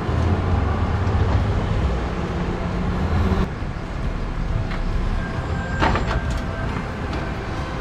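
A steady low mechanical rumble with a low hum, easing about three and a half seconds in. Then a few sharp clicks around six seconds in, as parts are handled around the radiator under the hood.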